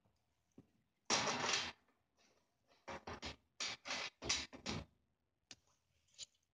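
Rustling and scraping handling noises from a person moving about close to the microphone: one longer scrape about a second in, then a rapid string of about seven short scuffs, with a few faint clicks.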